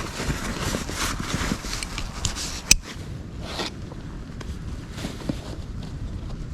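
Irregular scraping, rustling and crackling of wood and brush being worked by hand, with one sharp snap a little before halfway, then quieter rustling.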